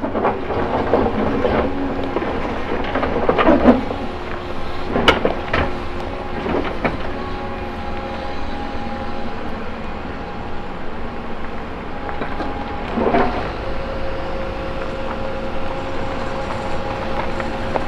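CAT 312E L hydraulic excavator running, its diesel engine and hydraulics giving a steady drone with several held tones. Rocks clatter and knock against the bucket and each other in the first few seconds, with sharp knocks around five to seven seconds in and another clatter about thirteen seconds in.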